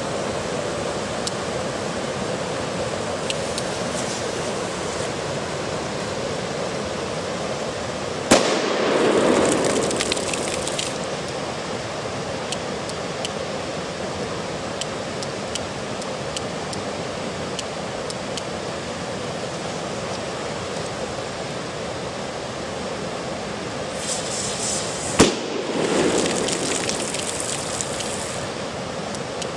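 Two firecracker bangs, one a little over eight seconds in and one near the end, each trailed by a rolling echo of about two seconds, over a steady rushing noise.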